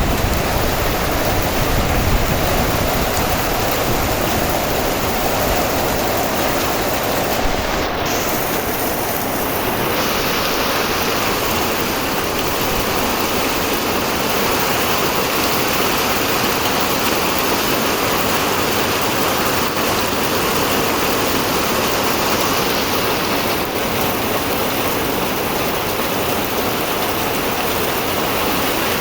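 Heavy rain pouring steadily, a dense even hiss of falling water.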